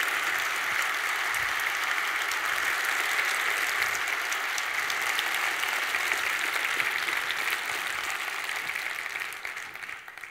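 Audience applauding steadily, dying away over the last couple of seconds.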